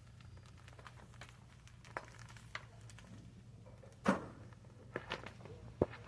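Scattered light clicks and knocks, with one louder knock about four seconds in, over a faint low hum.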